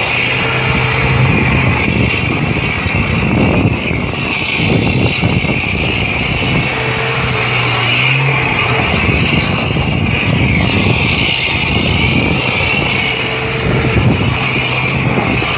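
A motor vehicle's engine and road noise running loudly and steadily. A low steady note swells in three times, each for about two seconds.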